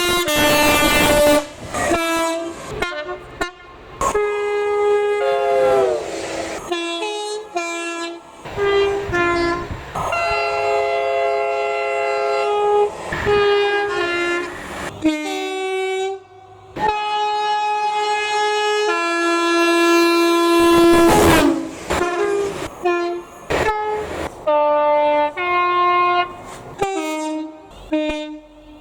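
Train horn sounded over and over in a rapid string of short high and low toots, with a few longer held notes, like a tune played on the horn.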